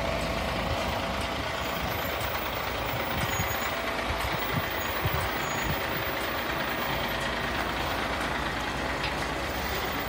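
A 2021 DAF CF 6x2 refuse truck drives slowly past at close range, its diesel engine running steadily under tyre noise.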